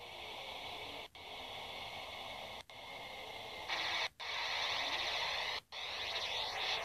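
Space radio emissions made audible: a steady radio-like hiss with faint held tones, cutting out briefly about every one and a half seconds. About four seconds in it jumps louder and brighter, with sweeping, whistling tones running through the hiss.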